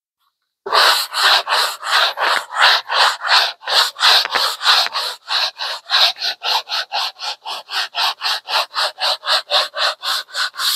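Window box being sanded by hand, in quick back-and-forth strokes at about four a second, starting just under a second in.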